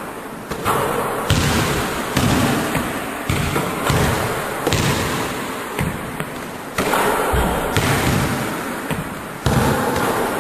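A basketball repeatedly thudding on a hardwood gym floor and hitting the rim and backboard, each impact ringing out in the echo of a big gym hall, roughly once a second at an uneven pace.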